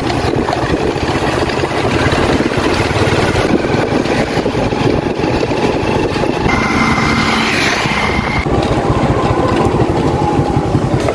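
Small motorcycle engine running steadily as the bike rides along, with a rapid even firing pulse and road and wind noise. A thin high tone sounds for about two seconds past the middle.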